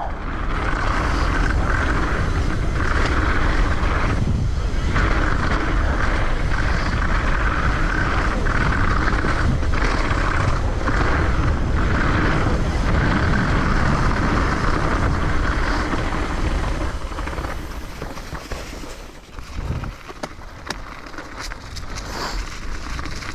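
Wind rushing over the microphone and tyres rolling on the ground as a downhill mountain bike is ridden at speed. The noise eases off near the end as the bike slows.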